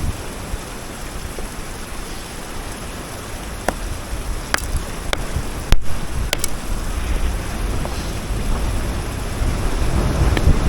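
A hammer tapping a hard rock nodule to split it open: several sharp knocks, spaced irregularly, mostly in the middle and near the end. Under them, a steady rumble of wind on the microphone.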